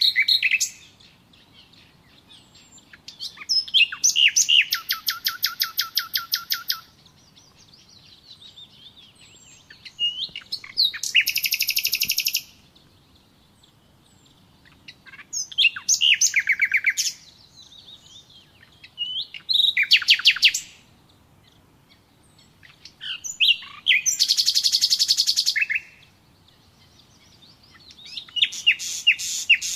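A songbird singing the same kind of phrase over and over, a few seconds apart. Each phrase is a few high chirps running into a fast trill.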